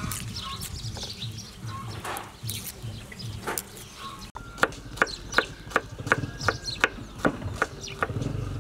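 Fingers peeling the papery skins off garlic cloves, then, about halfway through, a cleaver slicing garlic cloves on a wooden chopping board: sharp, evenly spaced knocks, about three a second.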